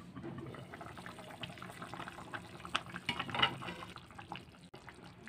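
Duck curry simmering in a pot, bubbling with a stream of small pops that grow a little louder around the middle.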